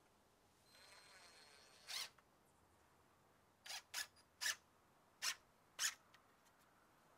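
Cordless drill run slowly for about a second, then pulsed in six short bursts as it drives a screw into a wooden board.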